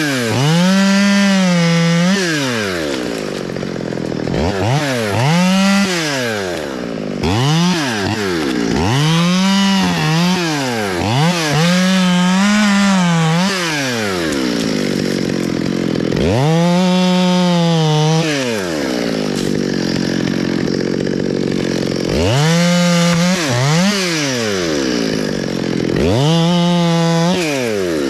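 Gas top-handle chainsaw revving to full throttle and dropping back to idle about eight times as it cuts limbs from a cottonwood.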